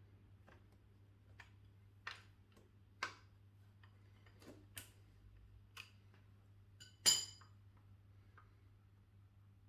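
Hand tools and small metal parts clicking and clinking while an engine's bottom end is worked on: light separate clicks about one a second, with a louder metal clink about seven seconds in that rings briefly.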